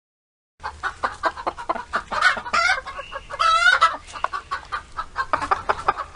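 Chickens clucking in a quick run of short notes, with one longer wavering call about three seconds in.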